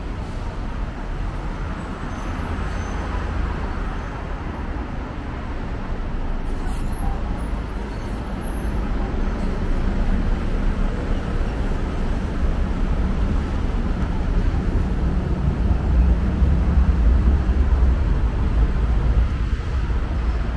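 Busy road traffic: a continuous low rumble of passing vehicles that grows louder through the second half.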